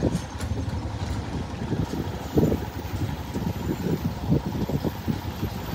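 Motorcycle running on the road: an uneven low rumble with irregular surges.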